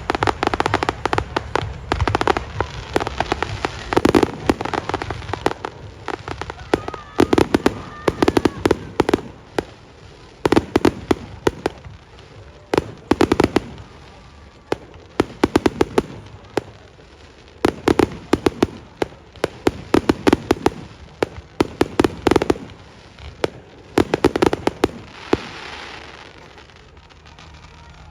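Fireworks display: aerial shells bursting in rapid volleys of sharp bangs and crackles, one cluster after another every couple of seconds, thinning out near the end.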